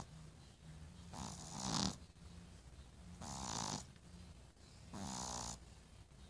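A sleeping pet snoring: three loud snores about two seconds apart, each about half a second long, with a faint low rumble between them.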